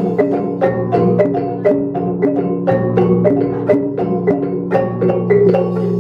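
Traditional Dayak dance music: a quick, repeating melody of short, bright notes, about three or four a second, over a steady low drone.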